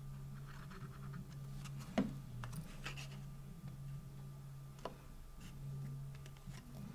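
Faint handling of a cardstock box while a glue tab is glued and pressed into place: light rustles and a couple of small clicks, clearest about two seconds in and near five seconds, over a steady low hum.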